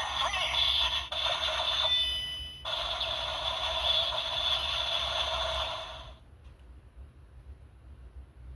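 A Super Sentai gesture-gun toy playing one of its electronic sound effects through its small built-in speaker: a noisy, hissing effect with a held high tone and little bass, a brief break about two and a half seconds in, then a second stretch that cuts off about six seconds in.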